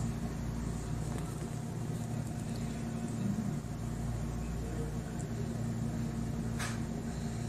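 Steady low machine hum with fixed low tones, and a brief faint click near the end.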